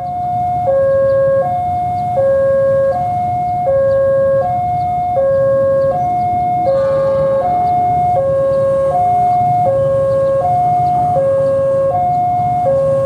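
Railway level-crossing warning alarm sounding a two-tone high-low signal, switching about every three-quarters of a second: the crossing is closed for an approaching train. A low steady rumble runs underneath.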